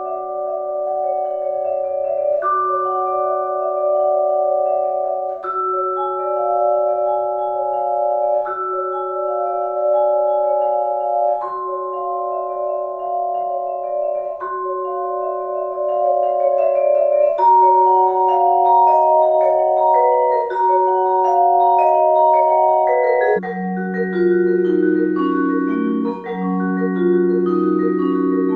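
Vibraphone played with four yarn mallets: ringing chords struck about every three seconds, each held on with quicker notes between. A little past the middle the music moves down to lower, louder chords.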